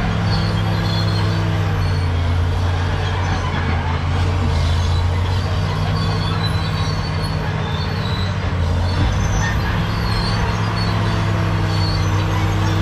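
Caterpillar D7G crawler bulldozer's diesel engine running steadily, with short high squeaks that recur throughout.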